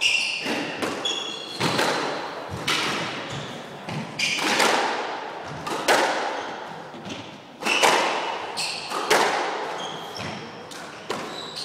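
Squash rally: sharp racket hits and the ball smacking the walls about once a second, each ringing in the enclosed court, with short squeaks of shoes on the wooden floor between them.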